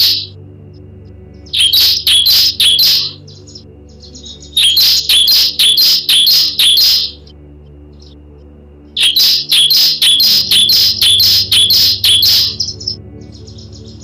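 Bar-winged prinia (ciblek) singing in three bursts of loud, quick, sharp repeated notes, about four or five a second, with short pauses between the bursts. Under the song runs a faint steady low hum.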